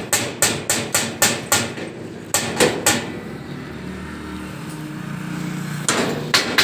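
Hammer blows on metal in a quick even series, about three a second, in vehicle body fabrication work. The blows stop about three seconds in while a steady low engine-like hum runs, and a few more blows come near the end.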